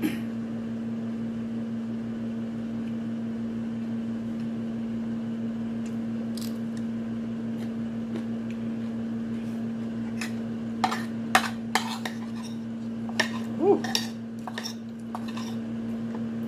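Metal spoon clinking and scraping against a plate, a few scattered sharp clicks and then a quick cluster of them in the second half, over a steady low hum.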